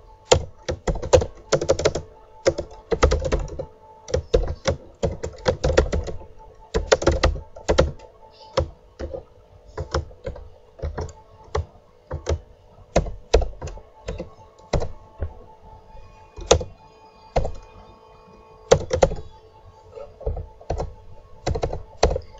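Typing on a computer keyboard: quick bursts of keystrokes with short pauses between them, thinning out in the middle stretch, over a faint steady hum.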